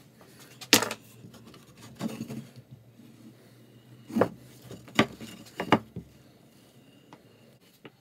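Pallet-wood boards being handled and set down on a wooden workbench: a handful of sharp wooden knocks and clatters, the loudest about a second in, then several more at irregular intervals.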